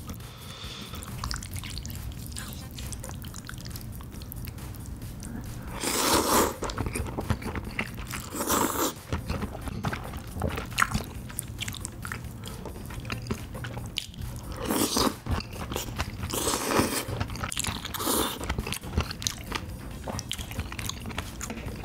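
Close-miked eating sounds: a person biting into and chewing mouthfuls of cream spaghetti with spicy boneless chicken feet, with several louder mouthfuls spread through. A low steady hum runs underneath.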